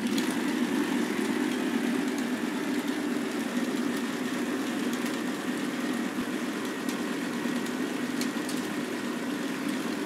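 K'nex robot arm running its programmed movement: its electric motor and plastic gear train start up suddenly and keep up a steady whirring drone, with a few faint clicks in the second half.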